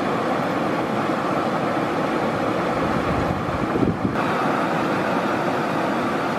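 River rapids rushing steadily, an even roar of fast water over rocks. A brief low buffet, like wind hitting the microphone, just under four seconds in.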